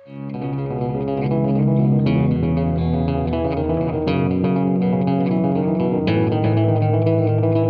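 Background music: electric guitar and bass guitar playing with a steady beat.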